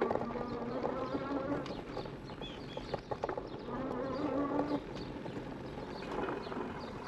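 E-bike electric assist motor whining in spells of about a second, at the start and again around four seconds in, over the clicking and rattling of the bike on a bumpy dirt trail.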